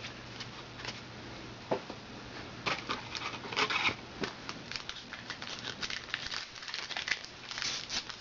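Foil wrapper of a Yu-Gi-Oh booster pack crinkling and tearing as it is handled and opened, with paper rustling of cards between the fingers. Irregular crackly rustles come and go, busiest in the middle and near the end.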